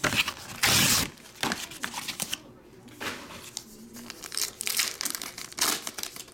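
A foil-wrapped 2023 Upper Deck Marvel Studios Loki trading-card pack being torn open by hand, its wrapper crinkling in repeated rustles. A louder rustle about a second in comes as a cardboard box is handled.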